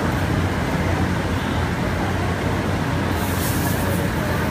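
Steady drone of finishing-floor machinery with a low hum, and a short high hiss of a stain-removal spotting gun spraying about three seconds in.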